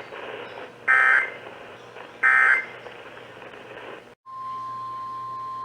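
Emergency Alert System end-of-message data bursts: short buzzing digital tone bursts repeated about one and a half seconds apart, closing the relayed warning. After a brief cut a little over four seconds in, a steady single-pitched alert tone begins, the attention signal that opens the next weather alert.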